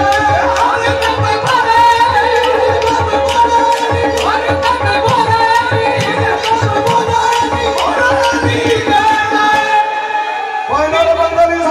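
Qawwali: men singing in the Sufi devotional style over a harmonium drone, tabla and steady hand-clapping. Near the end the drumming drops out for a moment and a voice comes in on a rising, held note.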